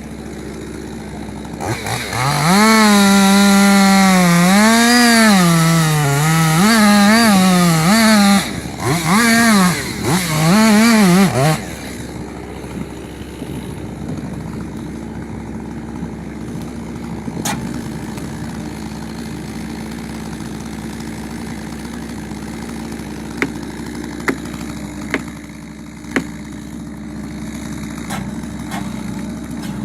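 Gas chainsaw revving hard and cutting for about ten seconds, its pitch rising and dipping repeatedly as the chain bites into the wood. It then drops to a quieter steady background, with a few short sharp knocks later on.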